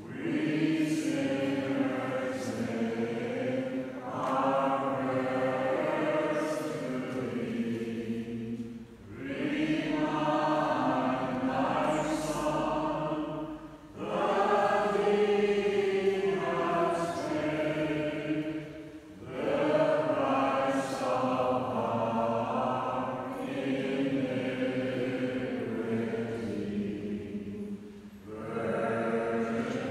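A group of pilgrims singing together, a congregation's voices in sustained phrases of a few seconds with brief breaks between them.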